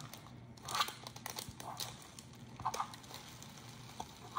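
A clear plastic bag of foam beads rustling and crinkling as it is handled, in short irregular crackles.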